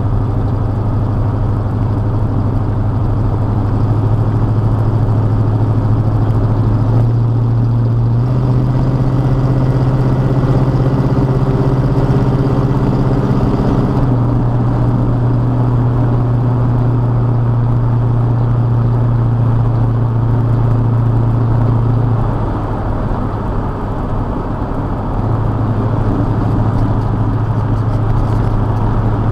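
Old farm pickup truck's engine and exhaust running steadily on the road. The engine note steps up in pitch over the first several seconds and settles lower about halfway through. It dips briefly about three-quarters of the way through, then picks back up.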